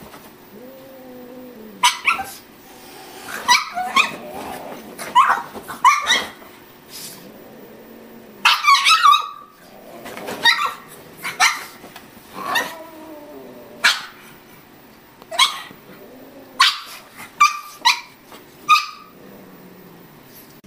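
Pug barking repeatedly at a cat, a string of short, sharp barks at irregular intervals.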